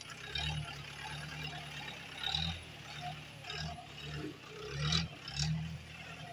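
Mahindra jeep driving slowly over a rough forest dirt track: the engine runs steadily at low speed while the body and wheels jolt over the ground, with a few louder bumps, the loudest about five seconds in.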